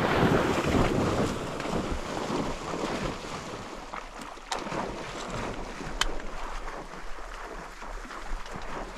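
Fading boom of a shotgun shot, then a steady rushing hiss of wind on the microphone, with two sharp clicks around the middle.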